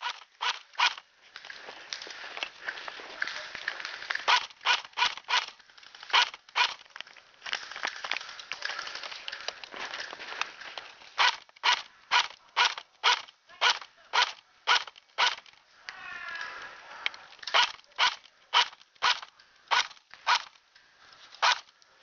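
Airsoft guns firing single shots, a run of sharp cracks at irregular intervals of about one to three a second. A brief shouted voice comes in about sixteen seconds in.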